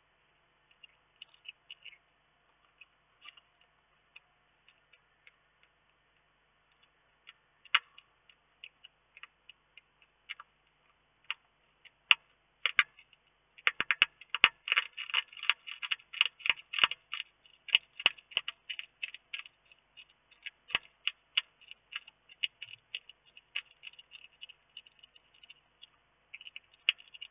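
Small irregular clicks and crackles from a hedgehog in its house, sparse at first, then thickening into a quick, dense run about halfway through before thinning to a steady scatter.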